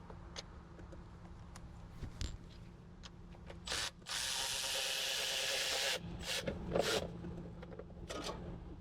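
Cordless high-speed ratchet running for about two seconds to undo a fastener, after a short blip of the trigger, with light clicks and clinks of tools and parts being handled around it.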